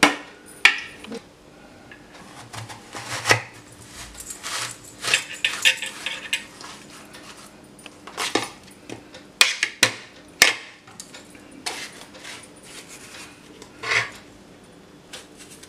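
Vegetable peeler and kitchen knife working on an apple over a plate: soft scraping of peeling, with irregular clicks and a few sharper knocks of the tools against the plate as the apple is cut into pieces.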